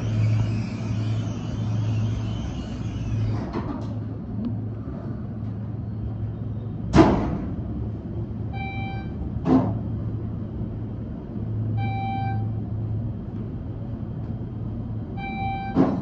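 Schindler 400A machine-room-less traction elevator travelling between floors: its car chime gives a short single tone at each floor passed, three times about three and a half seconds apart, over a steady low hum. A sharp knock comes about seven seconds in, with lighter knocks later.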